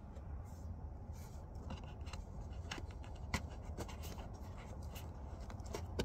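Scattered light clicks and ticks of a hand working a hose or connector in the engine bay, over a steady low rumble.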